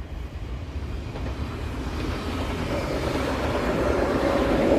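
NS double-deck electric passenger train approaching and passing close by, its wheels rolling on the rails in a rushing noise that swells steadily louder. Wind rumbles on the microphone.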